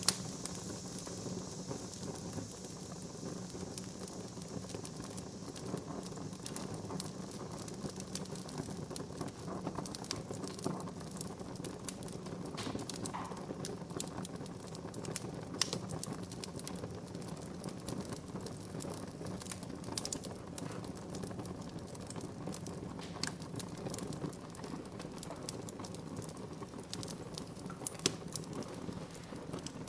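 Wood fire burning in a fireplace: a steady low rush of flame with frequent sharp crackles and pops from the burning wood, a louder pop right at the start and another near the end.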